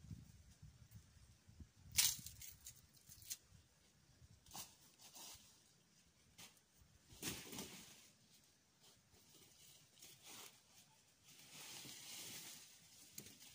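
Scattered sharp knocks and cracks of long green bamboo poles being handled among the brush, the loudest about two seconds in, with rustling of leaves and stalks, briefly around seven seconds and longer near the end.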